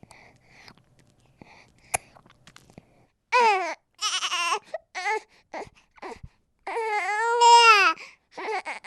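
Infant fussing and crying: after a few faint mouth clicks, a baby lets out a string of short wailing cries from about three seconds in, with one longer rising-and-falling cry near the end.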